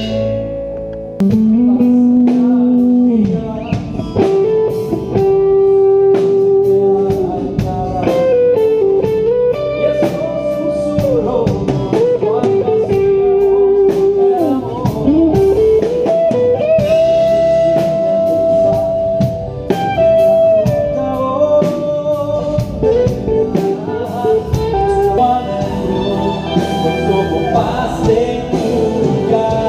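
A band playing, led by an electric guitar with long held notes that bend up and down in pitch, over drums and bass guitar.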